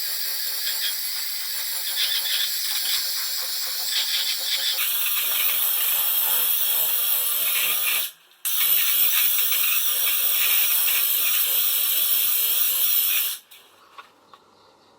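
A loud, steady high-pitched hiss with a faint high whine, broken by a brief stop about eight seconds in and cutting off sharply near the end.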